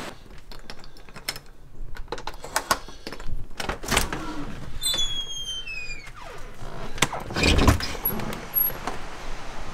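Doors being opened: a doorknob latch clicks, a door hinge gives a falling squeal, then a heavy thump as an outer door swings open, the loudest sound, with small clicks and handling noises throughout.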